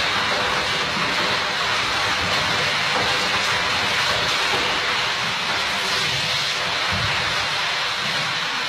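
Steady, loud rush of splashing water as a gorilla thrashes and spins in a plastic paddling pool, with a brief low thud about seven seconds in.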